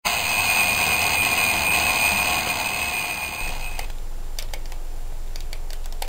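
Alarm clock ringing steadily, then cutting off suddenly about three and a half seconds in. A few faint clicks follow over a low hum.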